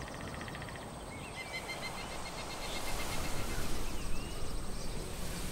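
Woodland ambience at dusk: a steady high insect drone, with a short run of small bird chirps early on. Over it a broad hiss grows louder after a couple of seconds.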